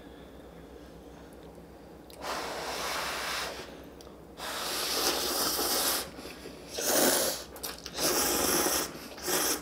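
Two people slurping hot, soupy instant ramen noodles: about five long, noisy slurps starting about two seconds in, with short quiet gaps between.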